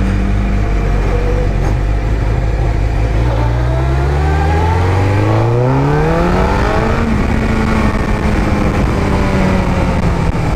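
Sport motorcycle engine under the rider, holding steady revs, then revving up as the bike accelerates for about four seconds before settling to a steady cruise, with wind noise rushing over the microphone.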